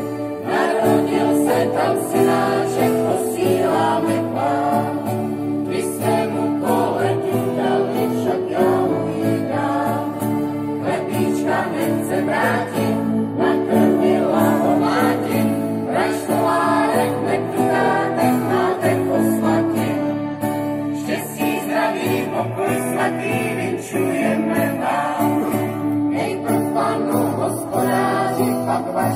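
A small choir singing a song together, accompanied by an acoustic guitar, without a break.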